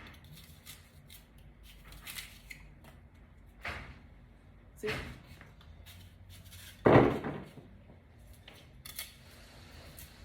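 Kitchen knife cutting produce on a cutting board: a few separate sharp knocks of the blade on the board, the loudest about seven seconds in.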